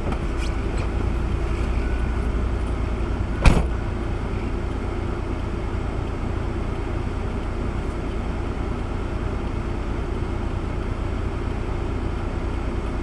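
Car driving at a steady speed: a constant engine and road rumble with a faint steady hum, broken once about three and a half seconds in by a single sharp knock.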